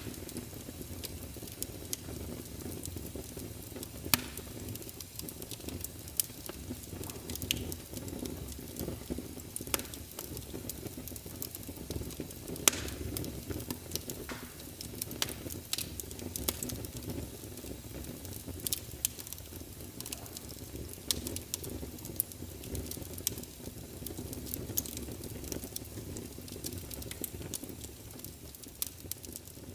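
Wood fire in a fireplace crackling, with irregular sharp pops over a steady low rumble, and a soft steady hiss of rain behind it.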